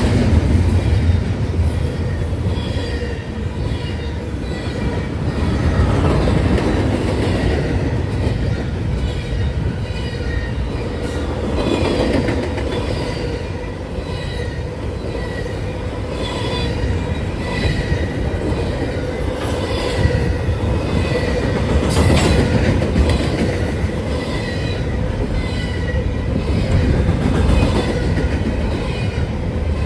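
Double-stack intermodal freight train of container well cars rolling past at speed: a steady rumble of steel wheels on rail, with clacking of the wheelsets over rail joints and faint high wheel squeal.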